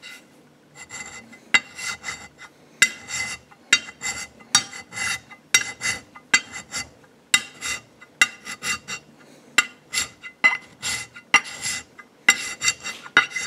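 Wide hand scraper (шабер) taking short strokes across the face of a steel straightedge, about one and a half strokes a second, each a brief rasping scrape with a faint ring from the steel. It is cutting down the high spots shown by the blue marking, to flatten the surface.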